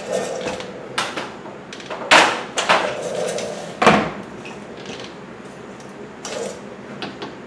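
Scattered clicks, knocks and scrapes of hands and tools working on the door lock actuator and its linkage inside a pickup truck's door. The loudest knocks come about two and four seconds in.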